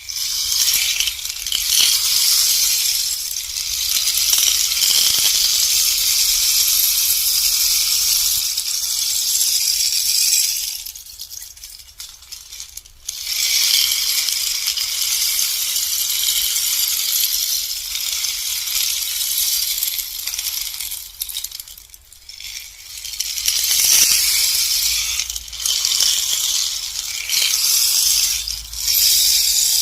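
Bamboo rainstick being tipped over and over: a continuous high pattering hiss of pebbles trickling down through it. The shower dies away about eleven seconds in and again a little after twenty, and starts again each time the stick is turned.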